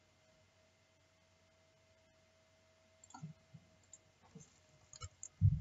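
About three seconds of near silence with a faint steady hum, then scattered computer-mouse clicks and a few dull desk knocks picked up by the recording microphone; the loudest is a low thump near the end.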